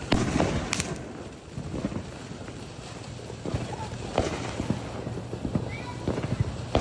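Scattered pops and cracks from consumer fireworks, a handful of sharp knocks at irregular intervals with a few brief whistle-like chirps between them.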